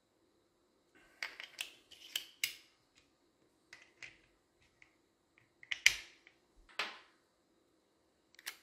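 Steel and brass parts of a Pietta Colt-pattern black-powder revolver clicking and knocking together as it is handled and reassembled: a quick run of sharp clicks between about one and two and a half seconds in, a few single clicks, and the loudest knocks near six seconds, as the cylinder and barrel are fitted back onto the frame.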